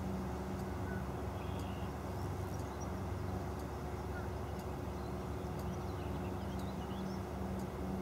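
A steady low mechanical hum and rumble that holds at one level throughout, with a few faint high chirps and light regular ticks over it.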